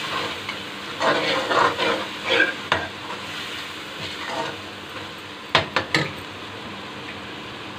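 Metal spoon stirring and scraping a tomato, garlic and chilli masala in a steel wok, with the masala sizzling as it fries in oil. The scraping is busiest in the first three seconds, and three sharp taps come about five and a half seconds in.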